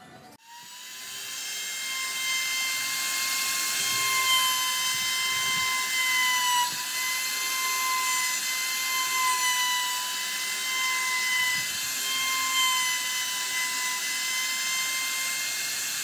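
Makita trim router running and cutting into the edge of a pine board, a steady high whine over a hiss, with small dips in pitch. It starts abruptly about half a second in.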